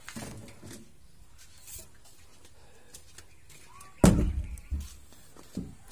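A hoe being handled and carried out of a shed: faint rustling, then a sudden heavy thump about four seconds in, with two smaller knocks after it.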